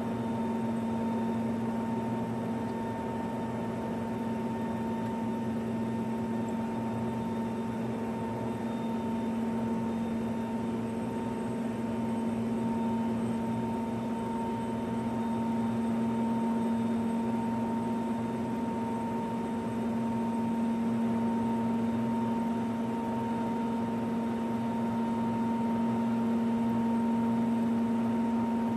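Helicopter running steadily on the ground, heard from inside the open cabin: an even rushing noise under a steady hum and a fainter, higher whine.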